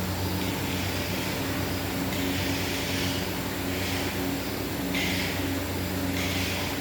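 Dairy processing machinery running, with a steady motor hum and a swishing hiss that repeats about every second and a bit.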